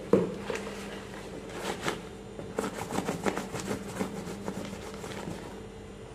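Hands handling and turning a leather sneaker, giving scattered light rustles and taps, over a steady low hum.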